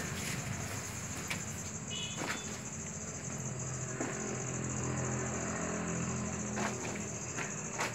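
Steady high-pitched trill of crickets over a low hum, with a few sharp clicks.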